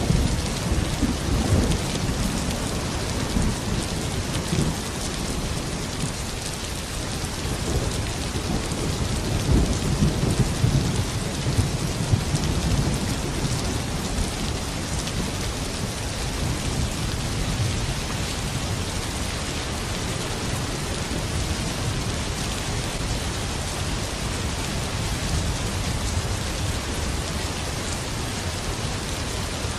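Steady rain falling, an even hiss, with low rolling rumbles of thunder in the first half that die away, leaving rain alone.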